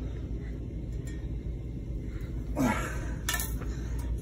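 A frying pan being handled and strained with both hands, giving faint clinks of metal, with a short grunt of effort about two and a half seconds in and a couple of sharp clicks just after.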